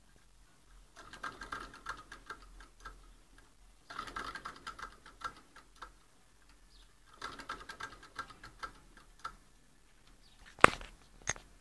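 Homemade Stirling engine's crank linkage ticking in three spells of rapid clicks, each about two seconds long, with one sharp click near the end.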